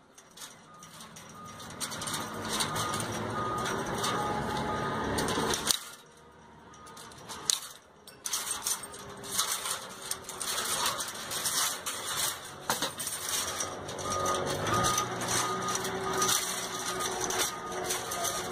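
A vehicle engine runs steadily, and a reversing beeper repeats in two stretches. A few sharp metallic clicks come from chain-link fence wire being bent by hand.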